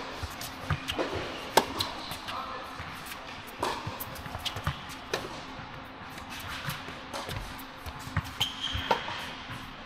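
Tennis point on an indoor hard court: sharp racket-on-ball hits and ball bounces at irregular intervals, footsteps, and a short sneaker squeak near the end, over a steady hall hum.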